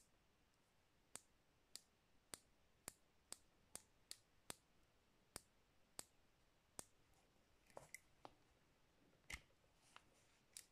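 A Hapelon Cizeron .320 Bulldog revolver's cylinder clicking as it is turned by hand, a run of small, sharp clicks at about two a second. Near the end come a few looser clicks and one louder click.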